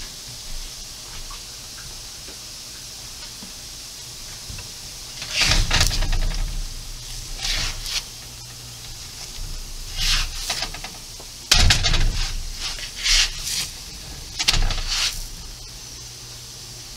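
Layered pancakes cooking on a flat griddle, with a steady faint sizzle. Six or so short louder bursts of sizzling and handling noise come in the second half as the pancakes are turned over on the hot surface.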